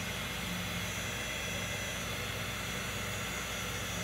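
Small handheld heat gun running: a steady blowing hiss from its fan and heating element, with a faint hum underneath.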